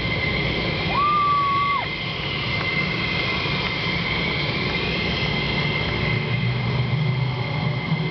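F-16 jet engines running at idle on the ramp: a steady high whine over a low rumble. About a second in, a short whistle-like tone sounds for just under a second.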